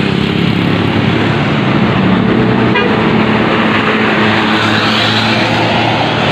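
Tour bus going by with its engine running while its Basuri telolet horn sounds.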